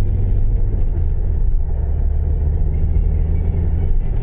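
Steady low rumble of engine and road noise heard from inside the cabin of a moving car, a French car of about 150 horsepower.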